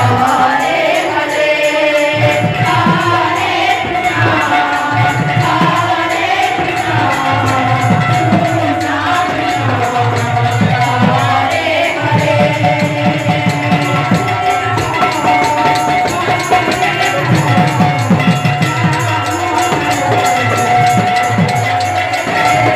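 Odia devotional kirtan song sung by women, with drums and jingling hand cymbals keeping a fast, steady beat.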